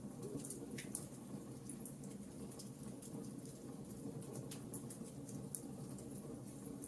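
Campfire crackling: irregular sharp snaps and pops over a low, steady rush from the burning wood.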